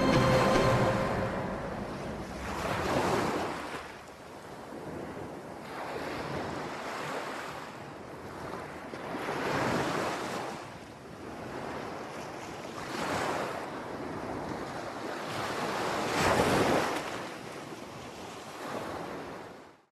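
Sea waves washing onto a rocky shore, surging and falling back about every three seconds, until the sound cuts off suddenly at the end.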